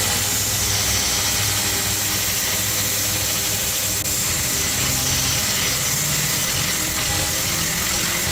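A workshop machine running steadily with a loud, even hiss, over background music.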